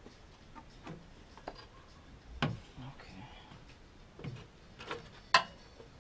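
Scattered clicks and knocks of parts being handled by hand in an engine bay, as air-filter parts are moved out of the way. There is a solid knock about two and a half seconds in, and the sharpest click comes near the end.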